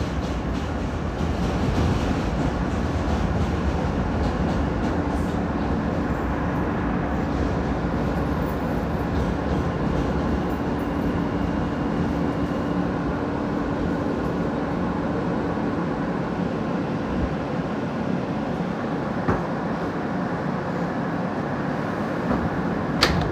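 Inside a moving R160 New York City subway car: steady rumble and rail noise. A steady hum joins about five seconds in and fades out around sixteen seconds.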